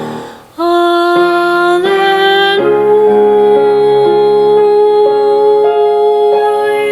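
Church worship music: the previous piece fades out in the first half second, then a keyboard comes in playing steady held chords that change every second or so.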